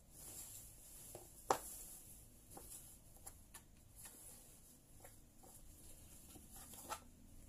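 Cloth being handled at a stopped sewing machine: faint rustling with scattered light clicks and taps, the sharpest about a second and a half in and another near the end.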